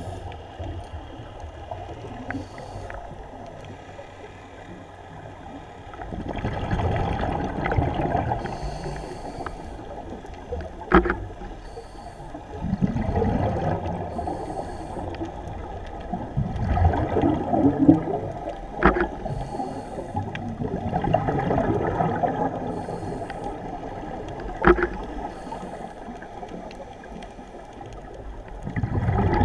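Scuba regulator breathing heard underwater through a GoPro housing: loud bubbling rumbles of exhaled air every few seconds, with quieter stretches between. A few sharp clicks stand out over it.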